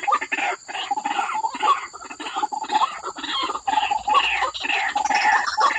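White-breasted waterhen calling: a rapid, unbroken series of harsh repeated croaks, several a second.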